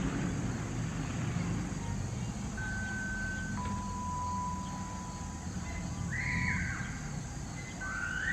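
Two-tone sequential paging tones over a radio, the fire department's tone-out ahead of the siren test. A higher tone holds for about a second and drops straight to a lower tone held for about three seconds, and a second high tone starts near the end, over a low rumble.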